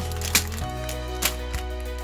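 Background music: sustained chords over a regular beat, with a sharp percussive hit about once a second and a chord change about half a second in.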